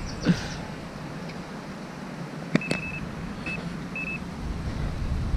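Electronic bite alarm on a fishing rod beeping three times, one longer beep and then two short ones, as a fish lifts the bait: the sign of a bite. Wind buffets the microphone throughout.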